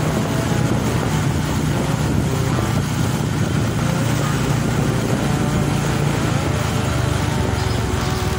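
Vehicle engine running steadily on the move, with a constant haze of wind and road noise. Near the end an engine note climbs in pitch and holds.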